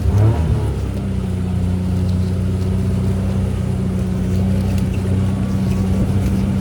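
Vehicle engine running steadily at an even low hum.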